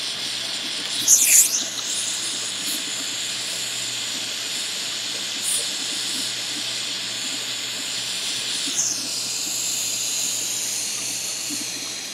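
Jeweler's hand-held gas torch flame hissing steadily as it heats a sterling silver pendant to flow the solder on its prongs, with a brief louder rush about a second in; the hiss cuts off at the end as the flame is taken away.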